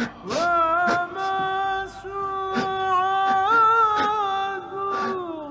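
Background music: a solo voice singing a slow, wordless melody, each phrase scooping up into long held notes with a wavering pitch.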